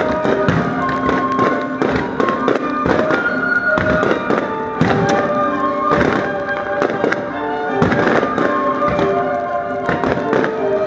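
Aerial fireworks shells bursting in quick, irregular succession over music with long held notes.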